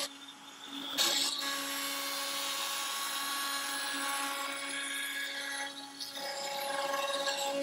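Onefinity CNC router's spindle running with a steady whine while its small bit cuts into a cedar board. There is a sharp click about a second in, and the sound of the cut changes about six seconds in.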